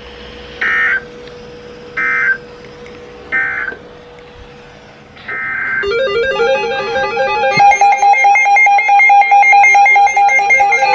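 Three short bursts of Emergency Alert System SAME end-of-message data tones, buzzy warbles a little over a second apart, marking the end of a NOAA Weather Radio warning. A fourth short burst follows, then louder music with quick repeated notes starts about six seconds in.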